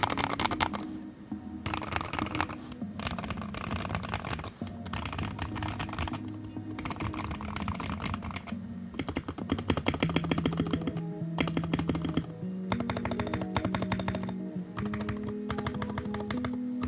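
Typing on a stacked acrylic, gasket-mounted mechanical keyboard with Gateron Oil King linear switches, an FR4 plate and ASA-profile keycaps: a steady stream of keystrokes, densest in a fast flurry about ten seconds in. Background music plays underneath.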